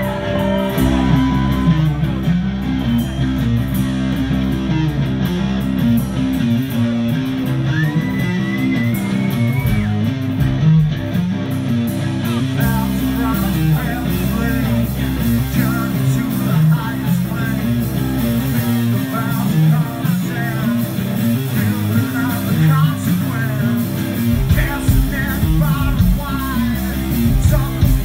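Live rock band playing: electric guitars, bass and drums, with a singer's vocals over them.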